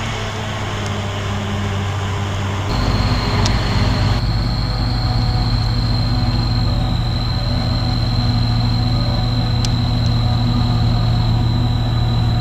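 Heavy diesel farm machinery working a maize harvest, running with a steady deep engine drone. About three seconds in it abruptly gets louder, and a high steady whine joins it and carries on.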